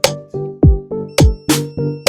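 Background electronic music with a steady drum-machine beat: deep kick drums and sharp snare-like hits under short repeated synth notes.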